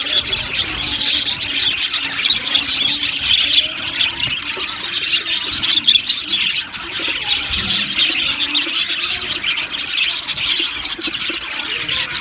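A colony of budgerigars chirping and chattering together: a dense, continuous mass of overlapping calls.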